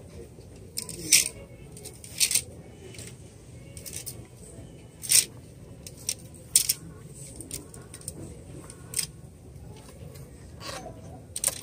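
Clothes hangers scraping and clicking along a metal clothing rail as shirts are pushed aside by hand, in about six short, irregular scrapes over a low background hum.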